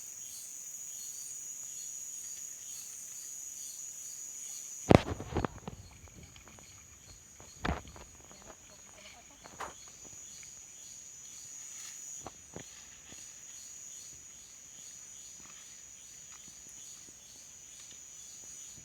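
Steady high-pitched trilling of insects, typical of crickets. About five seconds in, a loud sharp knock is followed by a few smaller knocks over the next several seconds.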